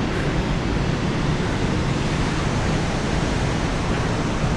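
Steady rushing of the 84-metre Montmorency waterfall, an even wash of water noise with no break.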